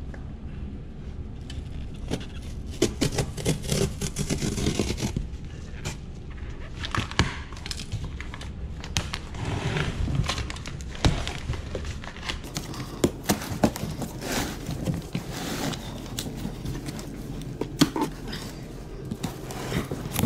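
A knife slitting open a large cardboard shipping box, then the cardboard being pulled, scraped and shifted on a hard floor: stretches of rustling, crinkling and tearing broken by sharp knocks and clicks.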